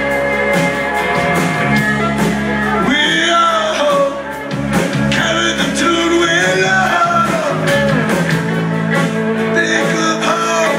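A live band playing a song on acoustic guitar, upright bass and fiddle, recorded from the audience, with a voice singing from about three seconds in.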